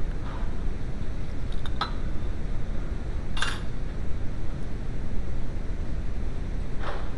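A few light metallic clinks, the loudest about halfway through, over a steady low rumble.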